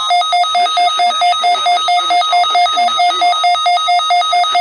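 Electronic alarm warbling rapidly between two pitches, about six times a second, over a weather radio broadcast.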